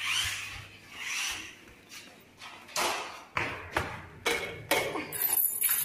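Two brief rushes of rubbing noise, then a run of sharp knocks about every half second.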